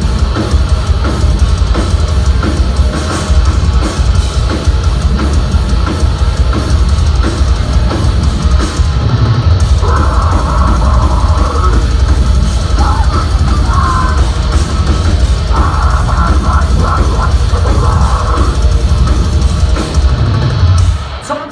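Deathcore band playing live and loud: heavily distorted guitars and bass over pounding drums. The music stops near the end.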